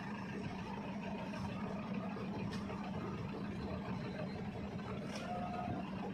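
Steady low drone of a car ferry's diesel engines running as the ship manoeuvres, heard across open water.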